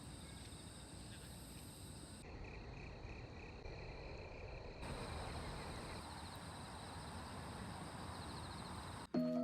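Insects chirping steadily in high, pulsing tones over a low outdoor noise, such as wind or distant surf; the mix of sounds changes abruptly twice.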